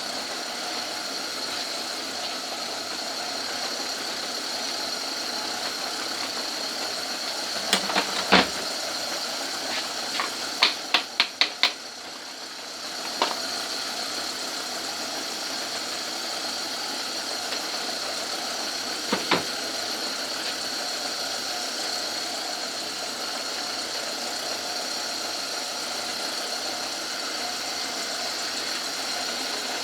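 Old Myford lathe running steadily with a high whine. Sharp knocks come about eight seconds in, then a quick run of five clicks while the running sound briefly dips, and another pair of knocks near nineteen seconds.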